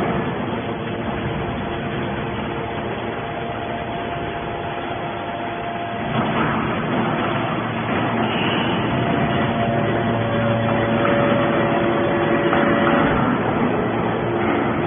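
Hydraulic scrap-metal baler running: a steady machine noise with faint steady tones, which shift and grow a little louder about six seconds in.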